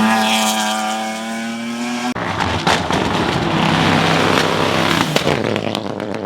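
Hill-climb race car engines at high revs: one engine held steady, then an abrupt cut to a rougher, noisier engine sound with a few sharp pops.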